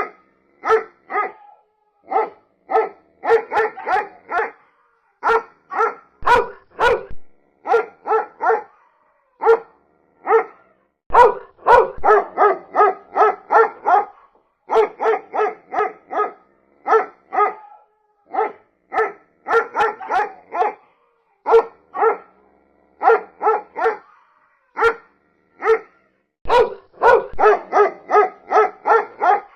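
A dog barking over and over, in single barks and quick runs of several with short pauses between, and a few faint whines in the gaps.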